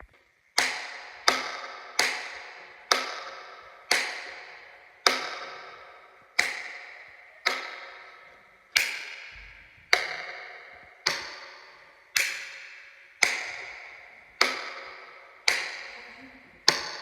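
Button click sound effect repeated about once a second, sixteen times: each a sharp click with a short ringing, pitched tail that dies away before the next.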